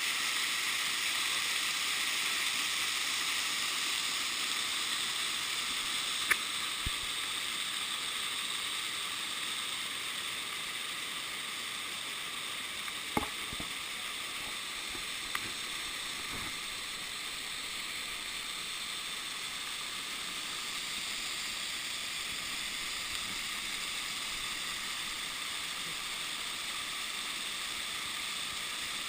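Waterfall: a steady, hissing rush of falling water, with a few brief sharp clicks about six, thirteen and fifteen seconds in.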